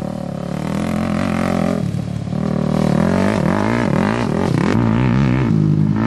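Sport quad's two-stroke engine revving up and down as it is ridden around a dirt course, its pitch rising and falling repeatedly, over the steady drone of an engine idling close by.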